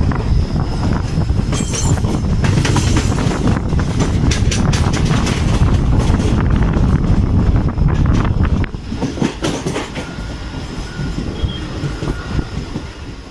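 Moving passenger train: a loud steady rumble of wheels on the rails with rapid clacks over the rail joints, dropping noticeably quieter about two-thirds of the way through.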